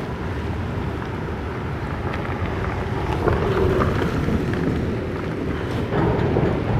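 Storm wind gusting hard against the microphone in heavy rain, a dense low rumble that swells about halfway through and again near the end. A car drives past on the wet road in the middle of it.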